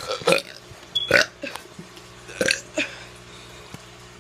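A teenager burping: several short burps, about a second apart.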